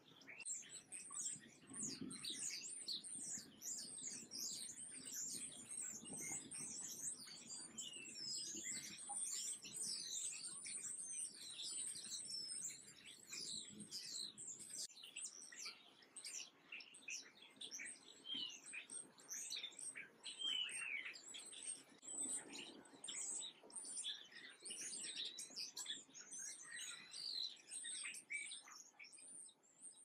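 Many small songbirds chirping and twittering at once, a dense run of quick high-pitched chirps that carries on throughout and fades out at the very end.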